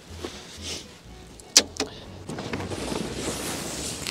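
Folding metal camp table being unlatched and handled: two sharp clicks about a second and a half in, then a steady hiss.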